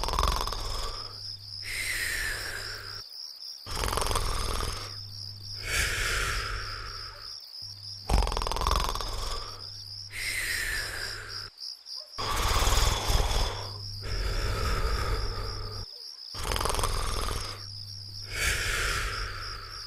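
Cartoon snoring sound effect: a long snore repeating about every two seconds, alternating a breathing-in swell with a breathing-out swell that carries a falling whistle-like tone. A steady high-pitched chirping runs underneath.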